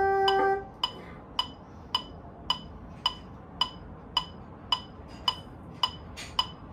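A held bassoon note stops about half a second in; then a metronome ticks evenly, just under two clicks a second, while the bassoon rests.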